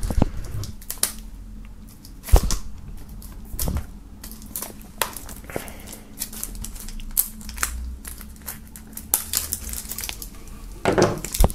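A knife slitting the shrink-wrap film on a plastic CD jewel case, and hands peeling it off. The sound is scattered clicks and taps of the hard case with crinkling of the film, a sharp knock about two seconds in, and denser crinkling near the end.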